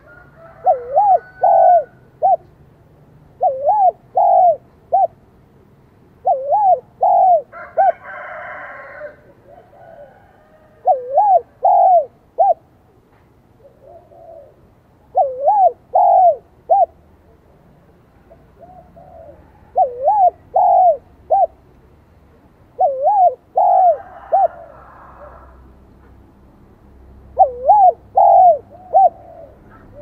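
Spotted dove cooing, a bird of the high-pitched 'son' (whistle) voice type kept to call in wild doves. It gives about eight short phrases of three or four coos each, spaced a few seconds apart.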